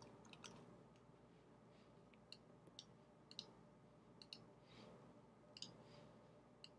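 Faint computer mouse clicks, about ten single clicks at irregular intervals, over near-silent room tone.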